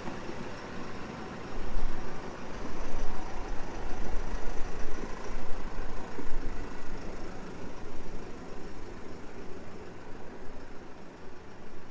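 Small tractor's engine running steadily, getting louder for a few seconds about two seconds in.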